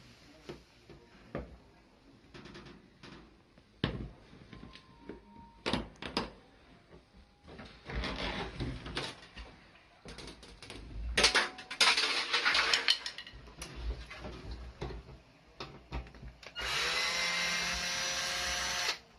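Scattered clicks, knocks and scraping of parts and tools being handled during washing-machine disassembly. Near the end a power drill runs steadily for about two and a half seconds, then stops.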